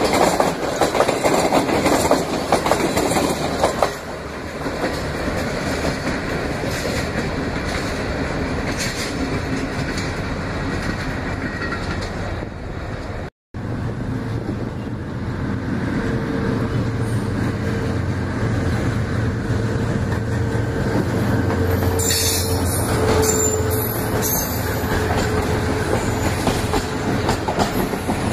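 Pakistan Railways passenger coaches rolling past close by. After a brief dropout about halfway, a steady low engine hum comes in as a diesel locomotive approaches, and its coaches roll past in turn.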